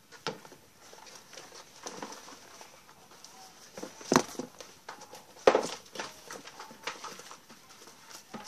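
Shoes being pulled off wooden closet shelves and dropped on the floor: a few irregular knocks and thumps, the loudest about four and five and a half seconds in, with rustling between.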